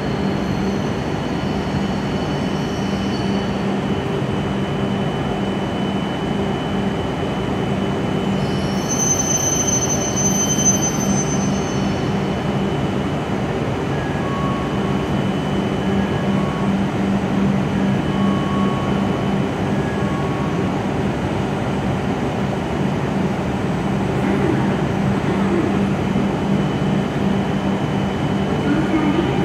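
W7 series Shinkansen train rolling slowly alongside the platform and coming to a stop, with a steady low hum. A high squeal comes in about nine seconds in and lasts about three seconds as it brakes.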